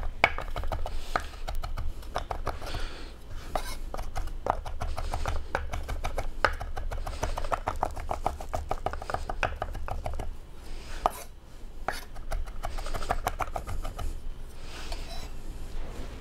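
Chef's knife chopping fresh herbs on a wooden cutting board: quick, even runs of sharp taps of the blade on the wood, with a short break about eleven seconds in.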